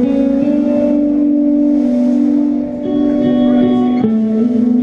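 Live band music: held, ringing guitar chords that change about three seconds in and again near four seconds.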